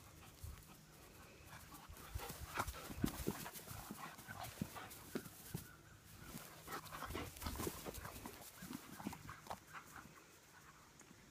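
A dog panting and mouthing a ball, with many short, irregular soft knocks and rustles that are busiest from about two seconds in until near the end.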